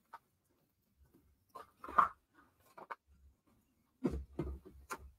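Paper sheets rustling and being handled in short bursts, with a few light knocks against the desk, the busiest stretch near the end.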